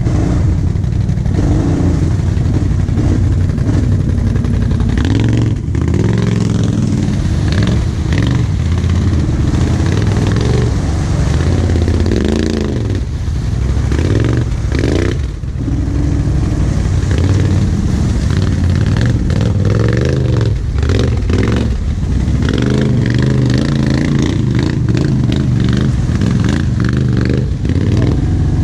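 Quad engine running under load, revving up and down again and again while crawling through a deep mud rut.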